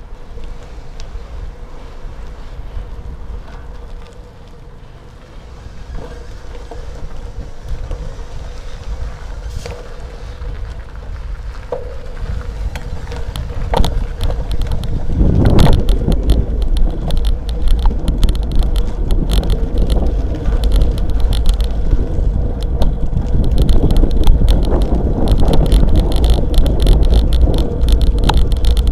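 Bicycle riding over rough asphalt, heard through a handlebar-mounted action camera: wind on the microphone and rumbling road noise, with the bike rattling. It gets louder about halfway in, with dense rattling clicks near the end.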